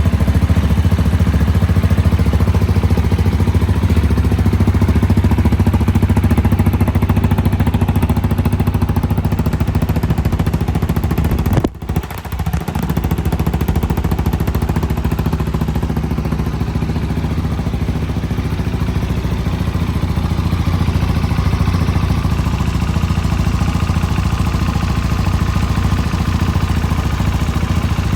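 Husqvarna Vitpilen 701's single-cylinder engine running steadily at idle. The sound cuts out briefly about twelve seconds in, then carries on.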